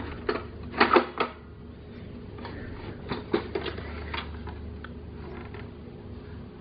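Hard plastic toy cash register being handled and turned over. A few sharp clicks and knocks come about a second in, then scattered lighter ticks.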